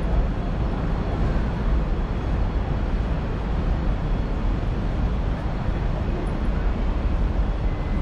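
Steady low rumble of city ambience, dominated by vehicle noise with no distinct events.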